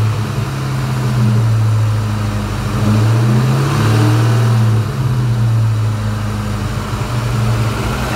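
Ford Mustang SVT Cobra V8 running and being lightly revved, its note swelling about a second in and again around three seconds in, then dropping back near five seconds. It runs without any ticking.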